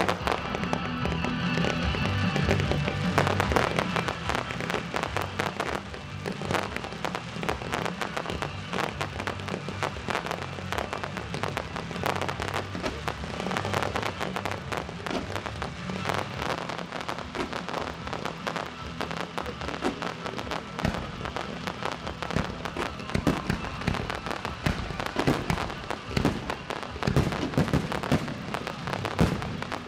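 Fireworks display of kamuro shells, a dense, continuous crackling and popping of bursting stars, over accompanying music.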